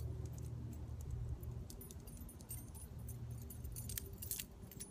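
Keys on a key ring carrying a Leatherman Squirt PS4 keychain multi-tool, clinking and jangling in the hand as the tool is handled, with a scattering of small clicks.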